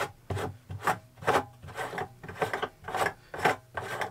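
Repeated rasping, rubbing strokes, about two a second, as something on top of a plastic glycol header tank is twisted by hand, most likely its filler cap.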